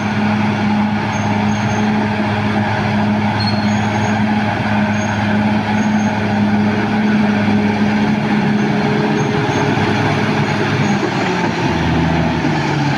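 Caterpillar D6R XL bulldozer's diesel engine running steadily under work, its pitch dropping as it slows down near the end.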